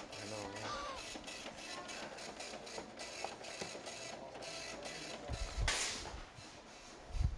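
Rapid, irregular mechanical clicking and rattling, with a low thump and a short burst of hiss about six seconds in and another thump near the end.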